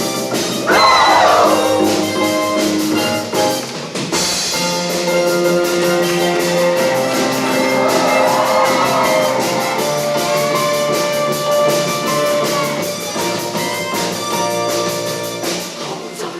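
Backing music for a show choir performance with a steady drum beat and sustained instrument tones, with singing voices gliding in and out.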